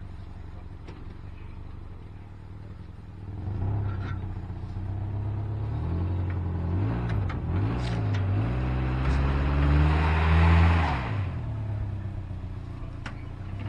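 SUV engine revving up and down under heavy load as it pulls on a tow chain to drag an overturned tractor upright, loudest about ten seconds in, then easing back to idle.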